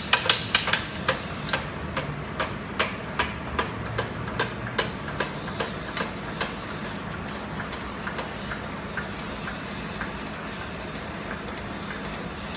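Rapid, even ratchet clicking, about two to three clicks a second, as the coilover spring is worked on a spring compressor; the clicks fade away after seven or eight seconds, leaving a steady low hum.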